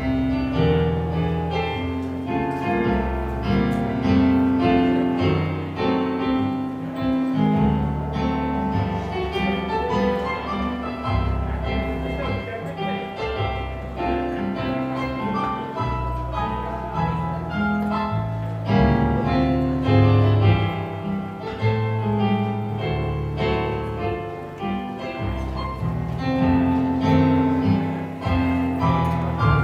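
Slow piano music played on an electronic keyboard: held chords over a changing bass line.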